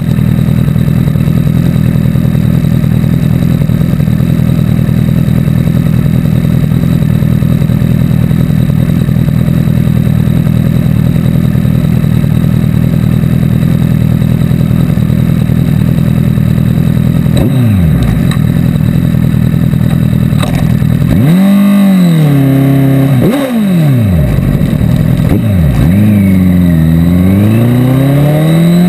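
Motorcycle engine idling steadily, close to a camera mounted on the bike. About two-thirds of the way in it is revved and the bike pulls away, the engine pitch rising and then dropping several times as it accelerates through the gears.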